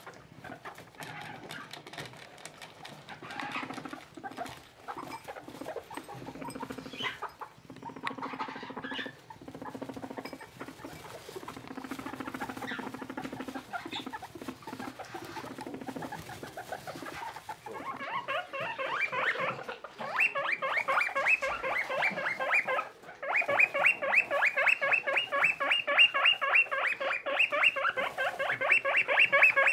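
Skinny guinea pigs rustling about in hay, with a few soft low calls. About eighteen seconds in, a guinea pig starts a fast, steady series of short, high squeaks, several a second, louder than the rustling, with one brief break.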